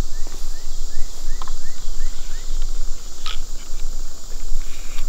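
Steady, high-pitched insect chorus of crickets. In the first half there is a run of about eight short rising chirps, and two or three sharp clicks come as the crossbow is handled.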